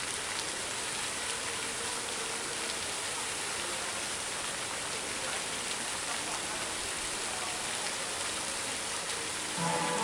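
Steady hiss of water from fountain jets spraying up and splashing back down.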